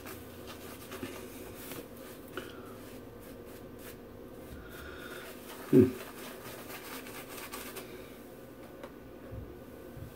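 Shaving brush working soap lather over a scalp: a faint soft rubbing and scratching. About six seconds in comes one brief, louder low sound that drops in pitch.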